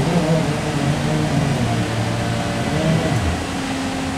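Škoda 14Tr01 trolleybus running, heard from inside the passenger cabin: a steady electric hum of several tones from the motors over a low road rumble.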